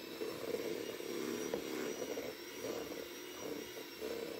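Electric hand mixer running at a steady whine, its beaters creaming butter and sugar in a glass bowl.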